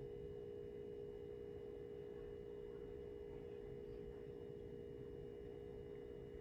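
Faint, steady, single-pitched hum held without change, over low background noise.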